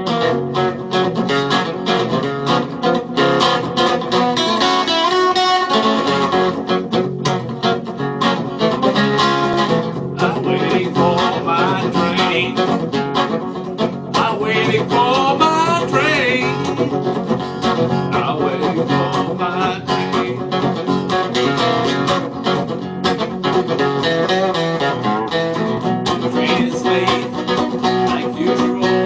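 Acoustic guitar played in a blues style, a steady rhythmic picked and strummed accompaniment in the manner of a railroad blues.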